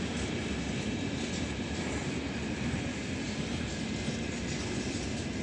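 Freight train of open gondola wagons rolling over a rail bridge: a steady rumble and hiss of wheels on the rails, with faint ticks.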